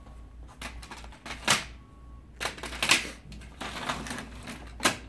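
Hard plastic clicks and clatter from toner cartridges being set into an HP M451 colour laser printer's toner drawer and the drawer being slid in. There are several separate knocks, with the sharpest near the end.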